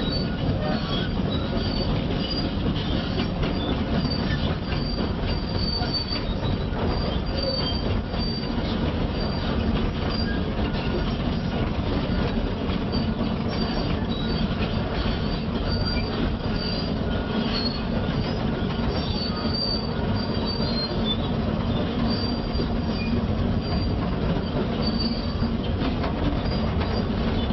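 Tracked quarry excavator's engine running steadily as the machine travels, with scattered high squeaks from its steel tracks.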